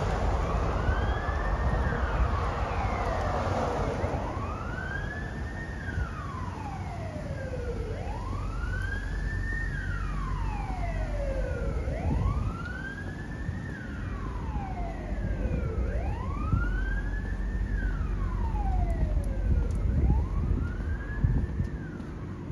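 Emergency vehicle siren wailing, slowly rising and falling about once every four seconds, over a steady low rumble of city traffic.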